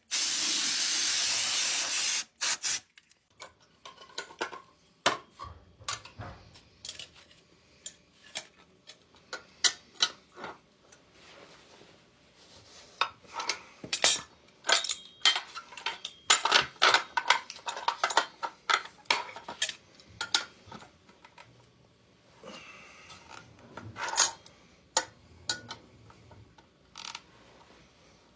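A loud spray hiss for about two seconds that cuts off, then scattered metal clinks, taps and tool clicks as hand tools work on a furnace's gas valve and burner manifold.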